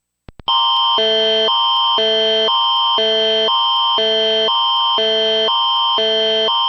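Canadian Alert Ready attention signal: a loud electronic alert tone alternating between two chords about twice a second over a constant high tone, starting about half a second in after a couple of short clicks.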